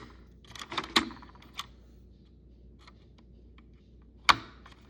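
Sharp plastic clicks and knocks from handling a smoke alarm and its battery: a cluster of clicks about a second in, faint small ticks after, and one loud click near the end. The alarm itself gives no beep.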